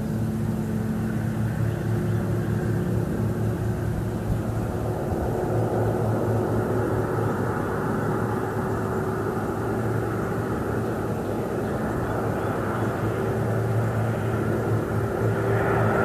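Light propeller aircraft engine droning steadily overhead, growing a little louder near the end.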